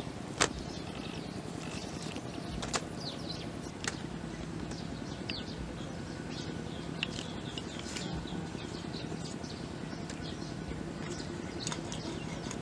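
Steady outdoor background noise with birds chirping throughout, broken by a few sharp knocks, the loudest about half a second in.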